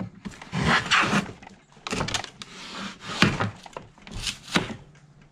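Vintage Mathieson & Sons jack plane cutting pallet timber in several rough strokes about a second apart, each a rasping shave. The iron is set coarse, so it is ripping out really big chunks rather than taking fine shavings.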